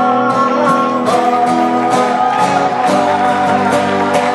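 Acoustic guitar playing held chords, with hand claps on the beat about twice a second.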